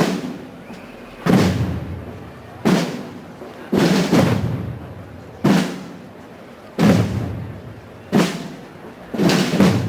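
Procession drums beating a slow, steady march, one heavy stroke about every one and a third seconds, a couple of them doubled, each stroke ringing on before the next.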